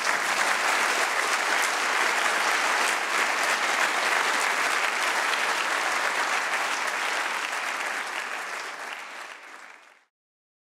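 Audience applauding steadily, fading away near the end and then cutting off abruptly.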